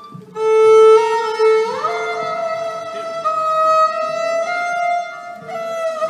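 Violin playing long held notes, starting about half a second in, with a smooth upward slide into a higher note after a couple of seconds.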